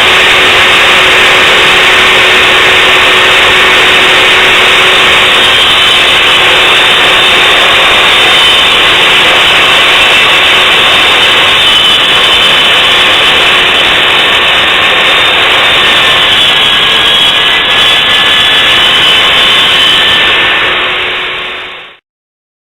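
Makita 2708 portable table saw running at full speed and ripping a thin edge off a rough-sawn board, a loud steady whine with a constant motor hum. It cuts off abruptly near the end.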